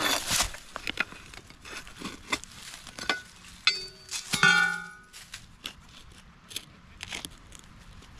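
Shovel digging in soil: repeated scraping, chopping strikes and crunching. The blade twice clangs with a short metallic ring against something hard, about three and a half and four and a half seconds in.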